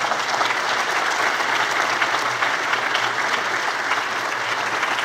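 A large audience applauding steadily in a lecture hall.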